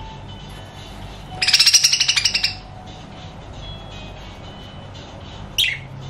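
Budgerigars calling: a fast, pulsed chatter of rapid repeated notes lasting about a second, then a short falling squawk near the end.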